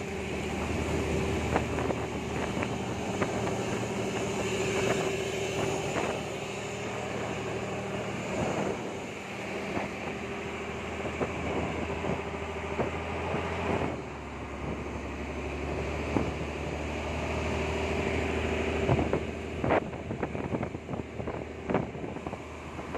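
Fishing boat's engine running steadily underway, a low drone with a held hum, with wind buffeting the microphone. A few sharp knocks come near the end.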